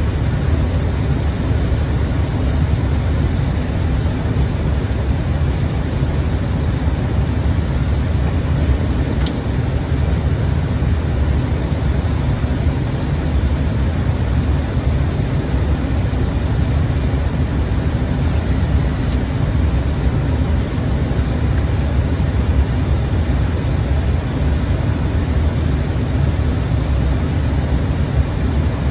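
Steady rushing cabin noise on an Airbus A320 flight deck in flight, mostly a deep low rumble, even and unchanging throughout.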